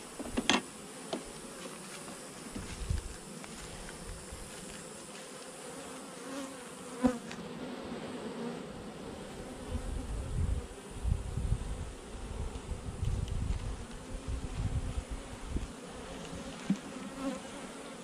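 Honeybees buzzing steadily around an opened hive as the frames are worked loose. A metal hive tool gives a sharp click about half a second in and again about seven seconds in. Low rumbling comes and goes in the middle.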